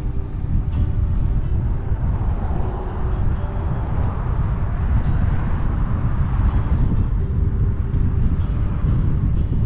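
Steady wind noise on the microphone of a moving bicycle, with a car passing by about halfway through.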